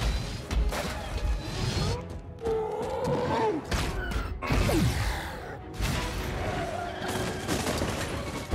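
Movie fight sound mix: a string of heavy punches, crashes and debris impacts as the Hulk and the Hulkbuster armor brawl, with orchestral score underneath and pitched sliding sounds in the middle.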